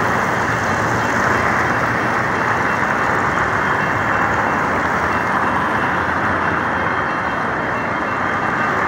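Steady city street traffic noise: an even, continuous din of passing cars and engines with no single event standing out.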